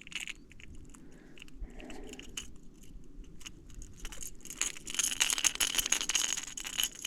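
A Zara Spook Jr topwater lure and its treble hooks rattling as a small trout flops while being unhooked. The rattling is scattered clicks at first and grows to a dense, continuous rattle for the last two seconds or so.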